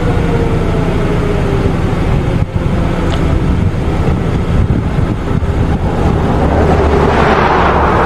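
Outdoor warning siren winding down, one tone sliding slowly lower in pitch over a heavy low rumble. After a short break about two and a half seconds in, loud rumbling noise continues, swelling near the end.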